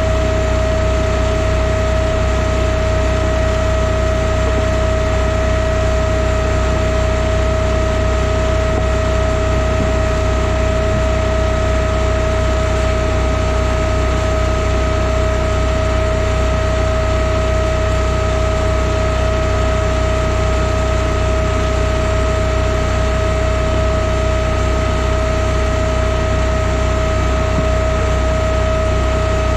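Timberwolf Alpha 6 hydraulic log splitter's engine running steadily at an even speed, with a constant high whine over the engine note.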